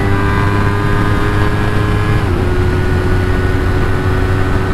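Motorcycle engine running at fairly steady revs while riding, its pitch sagging slightly and dipping a little about two seconds in. Heavy low rumble of wind on the microphone underneath.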